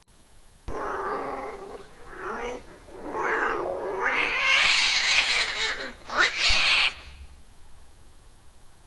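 Domestic cat giving low, drawn-out yowls, then a long forceful hiss about four seconds in and a sharp spit-like hiss that cuts off near the seven-second mark: a defensive warning from a cat that feels threatened.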